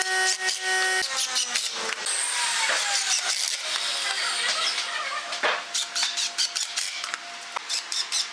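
Cordless impact driver driving screws into a wooden frame: a steady motor whine for about the first second, then runs of rapid clattering from its hammer mechanism as the screws bite, densest near the end.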